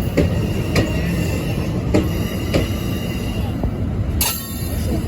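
Train rolling along the track with a steady low rumble, and pairs of sharp clicks as the wheels cross rail joints. A short high wheel screech comes about four seconds in.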